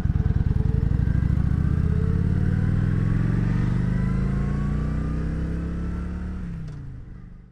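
Kawasaki Vulcan 900's V-twin engine pulling away from a stop. Its pulsing beat at low revs climbs steadily in pitch as the bike accelerates, then fades out near the end.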